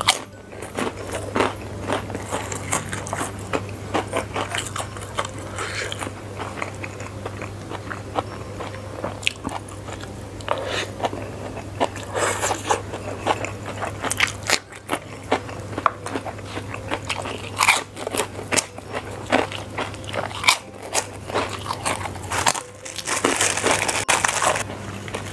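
Close-miked eating: many short crunches of crackers with chewing of fried flat rice noodles and cucumber. A steady low hum runs underneath. Near the end a plastic bag of crackers rustles loudly as it is opened.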